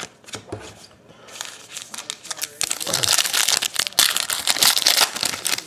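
Trading card pack wrapper crinkling as it is handled close to the microphone, growing louder about a second and a half in.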